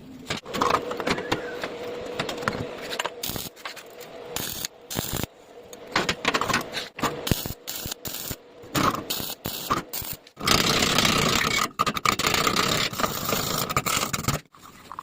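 Metal scraping and clattering with many short knocks and clicks, and a burst of steady hiss about ten seconds in.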